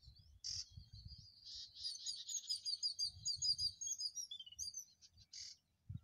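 Small birds calling: a thin, steady high note gives way to a fast run of high chirps, with a short harsh call about half a second in and another near the end. A low rumble of wind on the microphone runs underneath.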